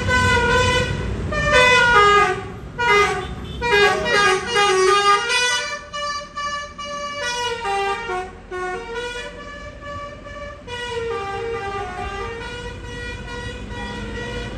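Tour bus's basuri musical horn playing a tune, a run of horn notes stepping up and down in pitch, louder in the first half and softer from about six seconds in. A low bus engine rumble sits under the first second.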